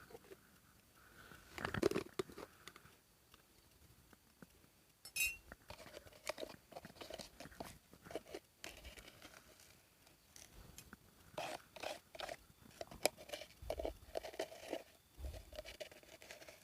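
Close crunching and rustling, with scattered small clicks and knocks; one sharp, briefly ringing click about five seconds in.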